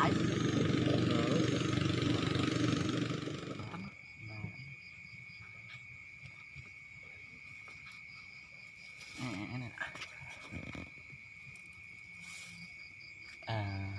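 A motor vehicle engine running loud, which cuts off about four seconds in. After it, a steady high-pitched insect drone, with two short bursts of voice.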